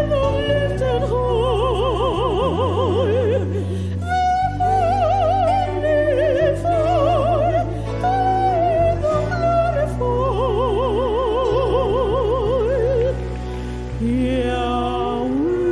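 Slow worship music: long, held, wordless melody notes with wide vibrato in an operatic style over a sustained low bass. Near the end the line glides up into a new held note.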